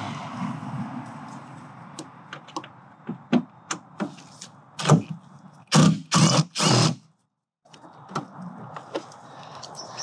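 Cordless DeWalt impact driver with a long extension bit, run in four short bursts about halfway through to undo the headlight's mounting screws. Light clicks and knocks of the bit and tool handling come before it.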